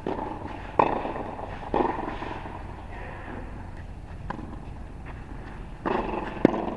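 Tennis ball struck by racket strings and bouncing on a hard court during a rally: several sharp pops, the loudest about a second in, just under two seconds in, and near the end.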